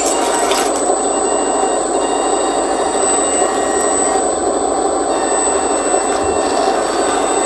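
Electric motors and hydraulic pump of a 1:14-scale RC hydraulic skid steer loader running: a steady mechanical whirr with a thin high-pitched whine over it.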